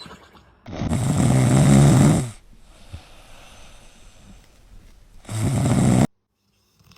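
Two loud snores: a long one of about a second and a half, then a shorter one near the end that cuts off suddenly.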